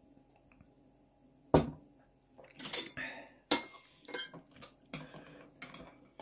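Dishes and eating utensils clattering: a sharp knock about a second and a half in, then a run of shorter clinks and scrapes.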